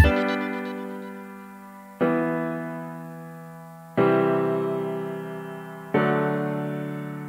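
Background music: four slow keyboard chords, one struck every two seconds, each fading out before the next.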